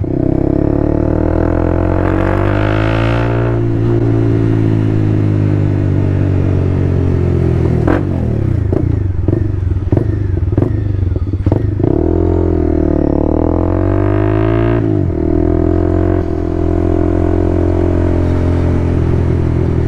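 Honda motorcycle engine running under way, its pitch rising and falling as the rider accelerates and eases off, with wind rush over the microphone. A few sharp clicks or knocks come in about the middle.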